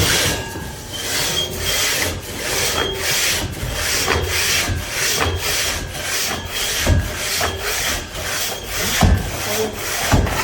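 Quick, regular rasping strokes of a hand tool worked back and forth, about two to three strokes a second.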